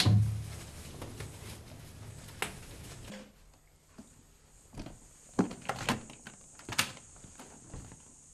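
A heavy thud at the start with a low rumble after it, then five or six sharp clicks and knocks spread over the following seconds: a door being shut, then a latch and handling in a small room.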